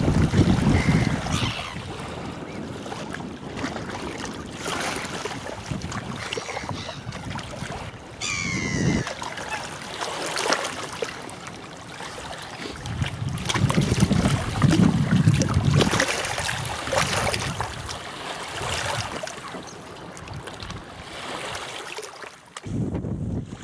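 Wind gusting on the microphone in low rumbling buffets, over small lake waves lapping and splashing on a stony shore. A short high call, plausibly from one of the lake birds, comes about eight seconds in.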